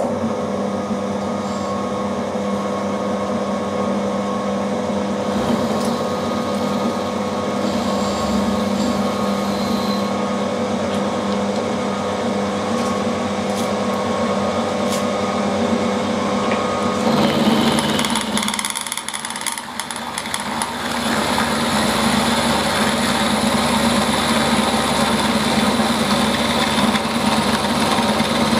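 Milling machine running with an end mill cutting along an aluminium block: a steady motor hum under the noise of the cut. The cut changes about 17 seconds in, eases for a moment, then carries on louder from about 21 seconds.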